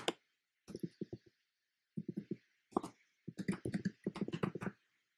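Typing on a computer keyboard: short runs of keystrokes with pauses between, then a longer, faster run about three to four and a half seconds in.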